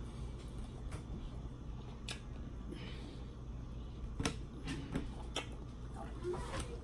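A person eating close to the microphone: chewing, with about half a dozen sharp clicks scattered through.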